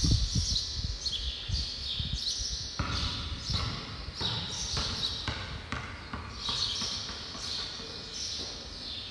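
Basketball bounced on a concrete floor: a steady run of dribbles, a little under two bounces a second.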